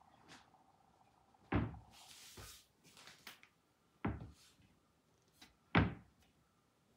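Hinged doors of a two-door cabinet being shut: three thuds, about a second and a half in, about four seconds in and near the end, the last the loudest, with a short rustle and light clicks between.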